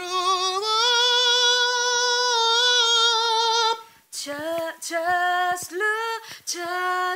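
A woman singing a long, high held note with vibrato. It slides up at the start and stops a little before four seconds in, followed by a few shorter sung notes.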